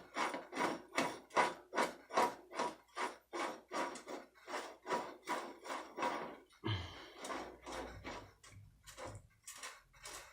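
Rhythmic rasping strokes, about two or three a second, as a metal part is turned by hand on a bicycle jackshaft. A slightly stronger stroke comes past the middle, and the strokes grow fainter after it.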